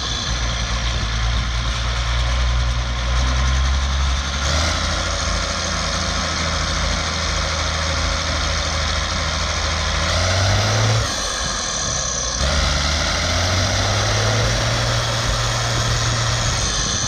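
Freshly rebuilt Zetor Crystal 16045 turbocharged six-cylinder diesel running steadily near idle while being run in. Its engine speed shifts a little about four seconds in, then rises briefly and dips around ten to twelve seconds in before settling again.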